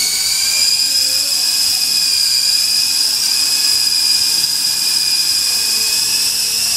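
Electric motors of a 3-channel Volitation toy RC helicopter spinning its rotors with a high, steady whine. The pitch climbs a little in the first second, then holds.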